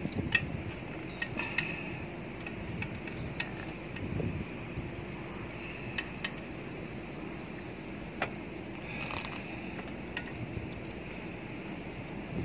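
Scattered light metallic clicks and clinks of tools and parts being handled on a bicycle's headset and stem, a few sharp ticks spread unevenly over steady background noise.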